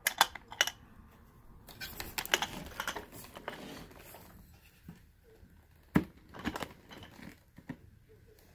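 Hard plastic parts of a Shark Navigator Lift-Away vacuum being handled as a release tab is opened: several sharp clicks, a spell of rattling, then one loud snap about six seconds in and a few lighter clicks.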